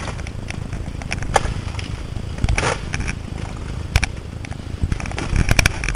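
Footsteps crunching through dry leaves and undergrowth on a forest floor, with a few sharp cracks of snapping twigs and a brief rustle of brush, over a steady low rumble.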